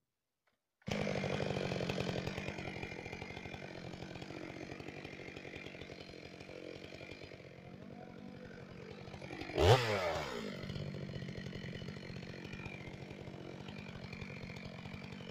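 Chainsaw idling, its engine cutting in abruptly about a second in. About two-thirds of the way through it is revved once, briefly, and drops back to idle.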